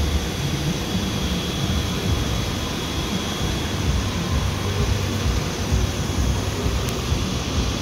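Chevrolet 3.4-litre V6 engine of a 2001 Impala idling steadily, a low rumble with an even hiss over it.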